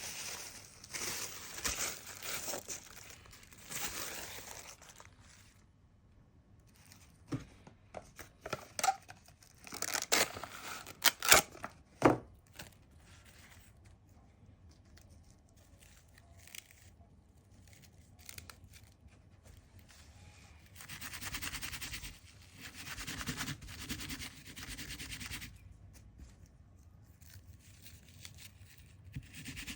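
Paper rustling and crinkling as sheets are handled, with a run of sharp taps and clicks in the middle.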